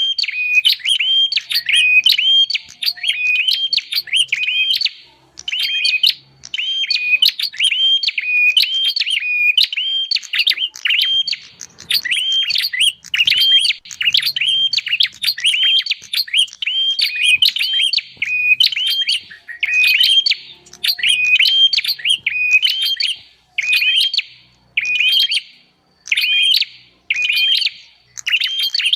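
Prinia (prenjak) lure-call recording: loud, rapid runs of sharp, repeated chirps in quick bursts with short breaks between them, played to attract wild prinias.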